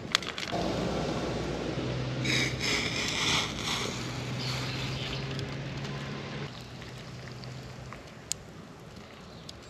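Hot water poured from a lidded cookpot into a metal bowl: a steady splashing stream that starts about half a second in and trails off around seven or eight seconds in.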